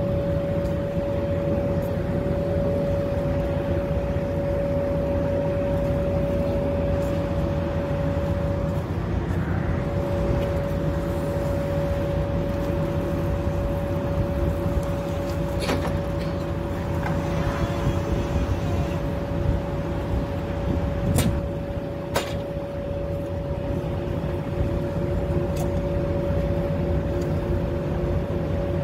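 Steady low rumble inside a Greyhound coach's cabin, with a constant whine above it and a few sharp clicks about two-thirds of the way through.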